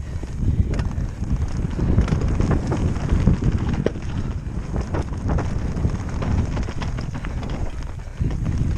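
Mountain bike riding fast down a rough dirt singletrack, heard from a camera on the bike: a constant low rumble of wind buffeting the microphone and tyres on the ground, with frequent short clacks and rattles from the bike over the bumps.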